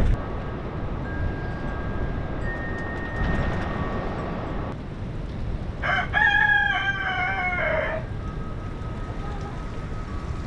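A rooster crowing once, about six seconds in, a call of about two seconds that drops in pitch at the end, over a steady noisy background.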